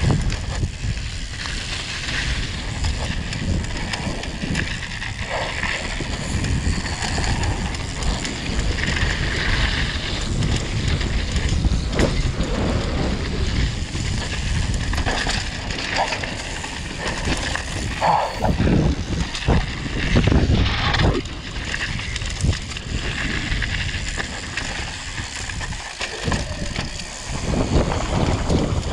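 Mountain bike descending a dirt downhill trail, heard from a ride-along camera: a steady rush of wind on the microphone over the rumble and rattle of the tyres and bike on the rough ground, with sharper knocks from bumps about two thirds of the way through.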